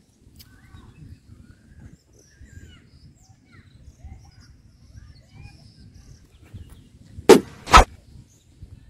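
Faint scattered bird chirps over a low outdoor rumble, then two loud sharp knocks about half a second apart near the end.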